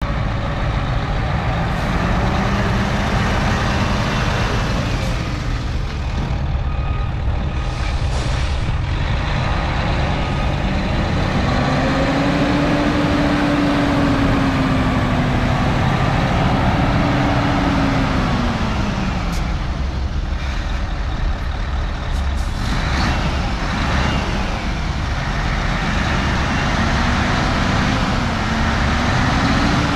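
Mercedes-Benz Actros 3848 truck tractor's diesel engine running steadily as the truck drives around, its note rising and falling with engine speed.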